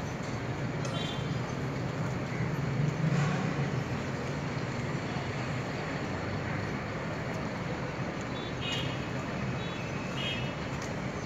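Diesel locomotive engines running in a rail yard, a steady low drone that swells briefly about three seconds in. A few brief high chirps sound over it.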